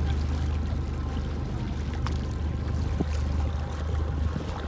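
A boat motor idling with a steady low hum, with water lapping and trickling.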